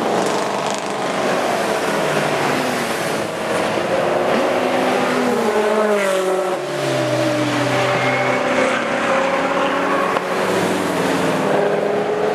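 Several race cars passing in quick succession at full throttle, their overlapping engine notes rising and falling as each goes by.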